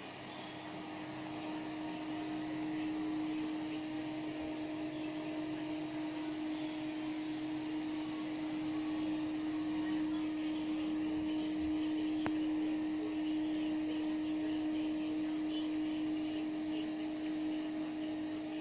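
A small motor humming steadily: one held tone over a hiss. There is a faint click about twelve seconds in.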